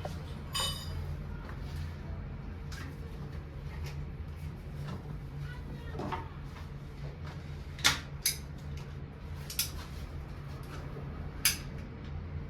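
A handful of sharp knocks and clicks, two close together about eight seconds in and the last near the end, over a steady low hum.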